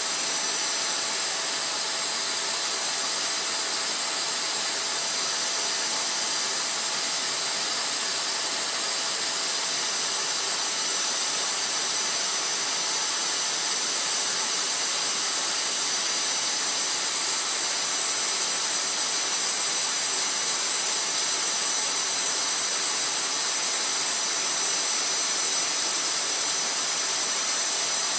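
Vacuum cleaner motor running steadily: a loud, even rushing hiss with a high whine. It is run as white noise to calm a crying newborn.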